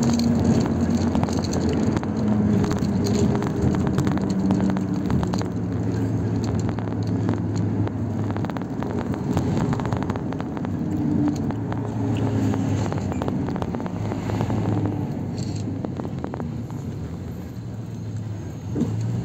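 Car in motion: a steady rumble of engine and road noise, easing off a little near the end.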